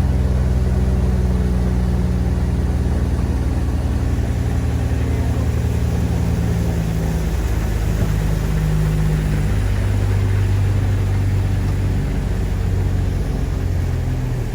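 Motorboat engine running steadily under way, with rushing wind and water noise; the engine note shifts slightly a few times.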